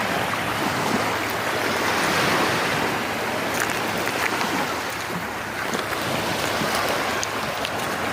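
Black Sea surf washing onto the shore, a steady rush of waves that swells a couple of seconds in, eases off and builds again.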